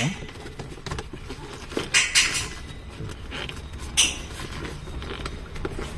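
Car gear-lever parts being handled: a few sharp plastic clicks and knocks, two close together about two seconds in and another about four seconds in, with light rubbing between.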